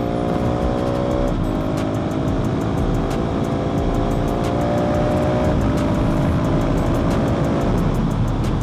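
Husqvarna 701's single-cylinder four-stroke engine, fitted with an Arrow exhaust, accelerating with a rising note. It upshifts about a second in and again about five and a half seconds in, the pitch dropping sharply at each shift and climbing again. Steady wind noise runs throughout, and the engine note fades into the wind near the end.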